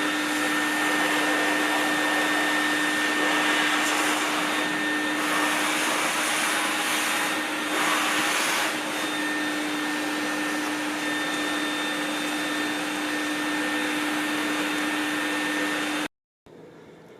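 Small electric power tool with a blower, such as a shop vacuum or heat gun, running steadily with a rushing airflow and a constant hum. It swells briefly about eight seconds in and stops abruptly near the end, leaving a faint hiss.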